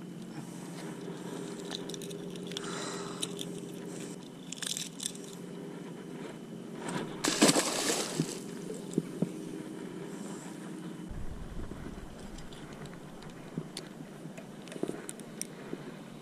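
Footsteps and scuffs crunching over wet rockweed on rocks, with scattered crackles, and a loud burst of water splashing at the rocks' edge about seven seconds in. A steady low hum runs underneath until about eleven seconds.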